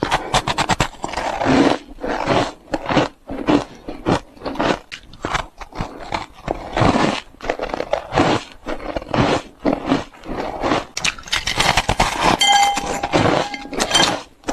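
Ice being bitten and chewed close to the microphone: a steady run of sharp crunches and cracks, several a second, with short pauses between bites.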